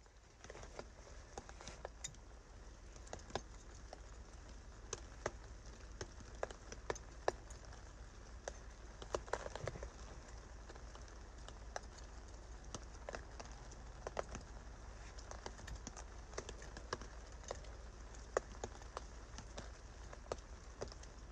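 Light, irregular ticks and taps, roughly one to three a second, like water drips landing on a taut tarp, over a faint steady low rumble.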